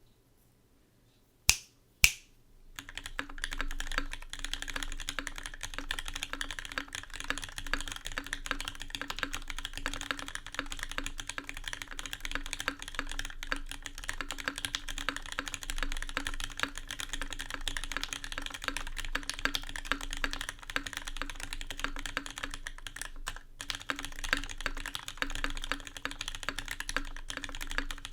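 Fast, continuous typing on a Kyuu 65% aluminium mechanical keyboard with vintage black linear switches on a brass plate, key after key with barely a break. It starts after two sharp clicks a couple of seconds in. The case is undampened, which the owner says it needs.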